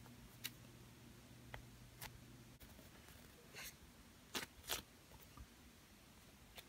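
Faint soft scrunching and small crackles from a large slow-rising foam bread squishy being crumpled and squeezed in the hands: a few scattered ticks, with the clearest scrunches in the middle.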